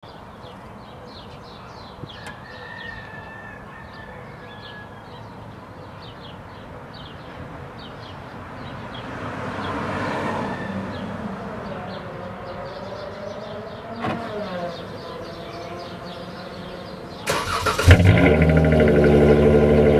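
A Dodge Charger's engine starts up suddenly about seventeen seconds in, after a quiet stretch, and then runs loudly and steadily.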